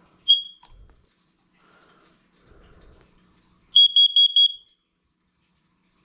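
Carbon monoxide detector under test: one short high-pitched beep, then about three seconds later four quick high-pitched beeps, the four-beep pattern of a CO alarm.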